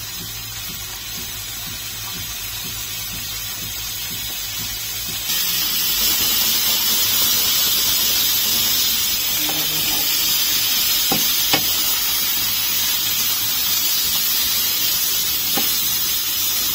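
Green peppers sizzling in a hot frying pan: a steady hiss that gets louder about five seconds in. A few light knocks of a wooden spatula against the pan come in the second half.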